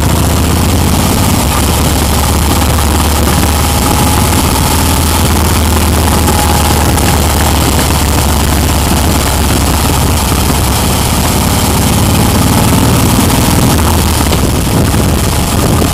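Motorcycle engine running steadily while riding at road speed, with a constant low hum under heavy wind rush on the microphone.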